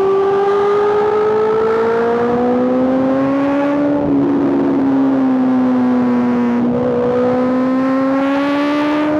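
Honda CBR650R inline-four engine through an Arrow aftermarket exhaust, under way with revs climbing, dropping at an upshift about four seconds in and again near seven seconds, then climbing again.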